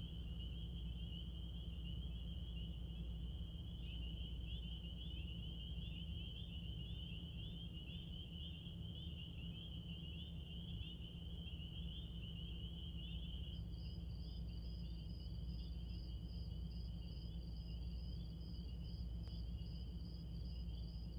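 Sustained ambient drone: a steady low rumble under a thin, slightly wavering high tone, with a second, higher tone joining about two-thirds of the way through.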